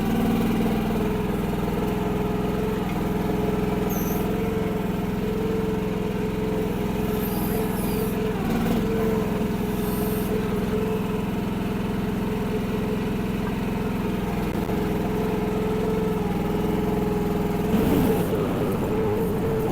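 Mini excavator's 14 hp Briggs & Stratton engine running at a steady speed while it digs, with a few short clinks and scrapes. Near the end the sound turns rougher and noisier.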